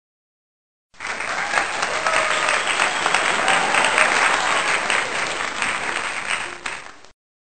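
Applause: many hands clapping at once, cutting in sharply about a second in and cutting off abruptly near the end.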